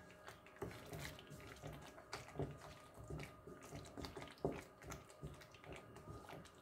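Wooden spatula stirring thick, simmering tamarind paste in a non-stick pan: faint, irregular wet scrapes and dabs as the reducing paste is worked.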